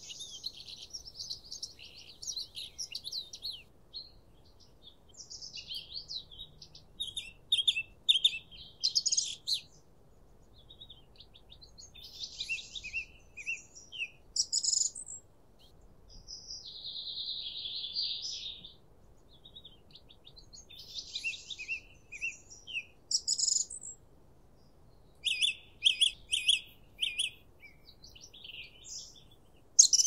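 Songbirds singing: short phrases of high chirps, trills and whistles, each a second or two long, with brief pauses between them, including one longer even trill.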